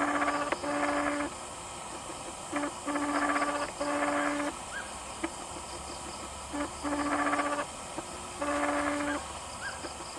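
An animal calling in repeated buzzy notes of steady pitch, mostly in pairs about every two to three seconds, over a steady background drone.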